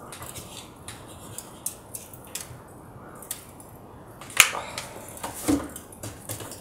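Quiet handling noises of hot-gluing paper by hand: faint rustling and scattered light clicks from the glue gun and paper, with one sharp knock a little past the middle.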